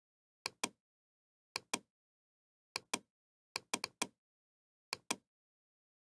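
Computer mouse clicking: six clicks roughly a second apart, each a sharp press followed by its release, with two of them in quick succession about four seconds in.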